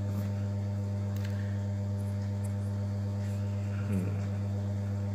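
A steady low hum with a stack of even overtones, strongest at its lowest notes. A brief faint voice sound comes about four seconds in.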